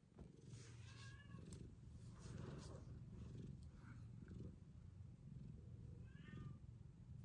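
Domestic cat purring quietly with a low, steady rumble. Two brief soft meows come about a second in and near the end.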